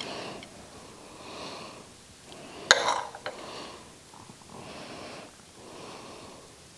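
Soft, regular breathing close to the microphone while a metal spoon ladles sauce from a clay pot onto rice, with one sharp clink of the spoon against the dishes a little under three seconds in and a couple of lighter taps after it.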